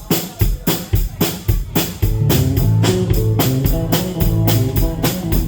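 Live band's drum kit playing a steady beat of about four hits a second, with the bass guitar coming in about two seconds in on low held notes: bass and drums being sound-checked together.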